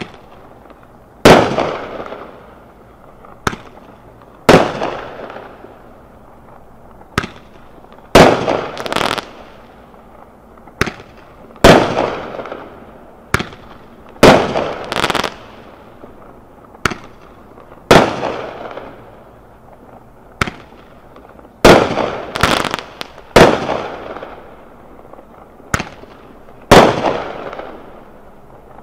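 Blaze of Glory 73-shot consumer fireworks cake firing shot after shot. Each shell leaves the tube with a small crack and bursts with a loud bang about a second later, one shot every two to three seconds. A few bursts are followed by a quick string of smaller pops.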